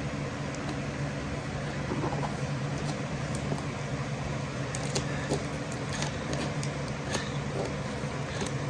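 A steady low mechanical hum, with a few faint scattered clicks.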